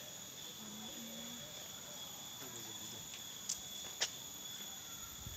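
Steady high-pitched insect chorus droning on one tone, with faint distant voices and two sharp clicks about three and a half and four seconds in.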